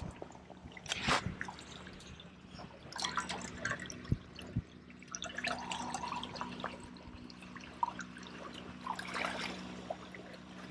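Coffee being poured from a stovetop moka pot into an insulated travel mug: a quiet trickle and dripping, with a few light metal knocks as the pot is handled.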